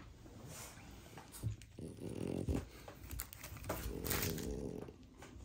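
A dog making low, rough grumbling vocal sounds, in two drawn-out bouts about two and four seconds in.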